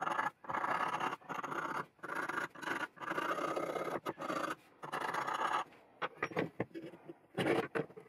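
Steel scriber scratching layout lines into a forged carbon-steel tanto blade, in a run of short strokes of half a second to a second each. Scattered light ticks and taps follow near the end.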